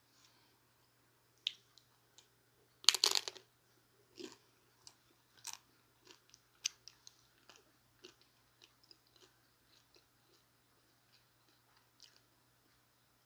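A person bites into a chicken taco loudly about three seconds in, then keeps chewing with many small, soft mouth clicks.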